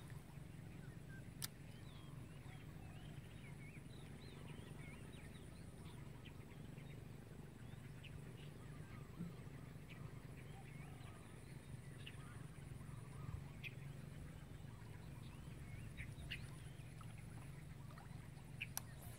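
Quiet pondside ambience: scattered faint bird chirps and calls over a low steady hum, with a few light clicks.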